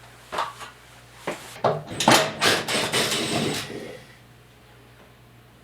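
Wooden knocks, then about two seconds of scraping and clattering as a board or brace is worked loose and taken down; it stops about four seconds in.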